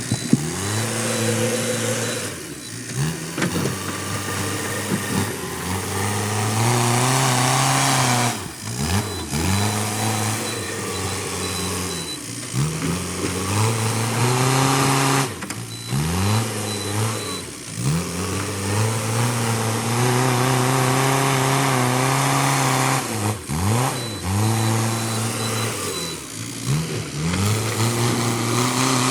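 Backhoe loader's diesel engine working, revving up and dropping back every few seconds as the machine is worked.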